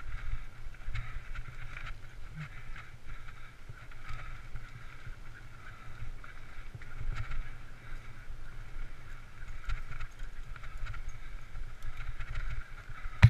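Mountain bike rolling fast over a dirt trail: wind buffeting the microphone and a steady tyre hiss, with scattered small clicks and rattles from the bike over the bumps.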